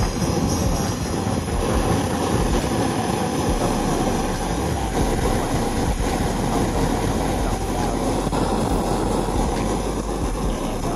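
A machine running steadily, a loud continuous mechanical noise with a low hum beneath it.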